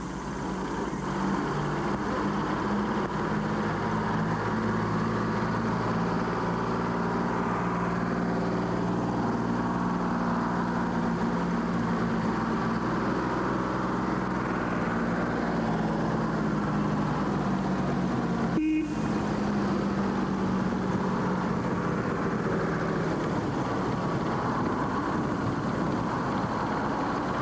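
An engine running steadily, a continuous low drone. It breaks off for a moment about 19 seconds in.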